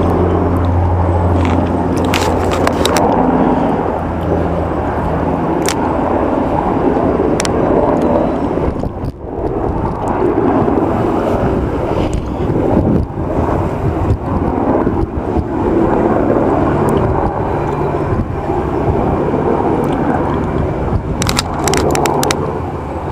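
Army helicopter flying overhead: a low steady drone that fades after about five seconds and comes back near the end, over a constant rushing noise, with a few sharp clicks.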